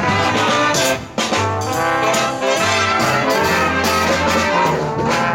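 A live swing band playing: trombones, trumpets and saxophones over a stepping bass line, with a brief break about a second in.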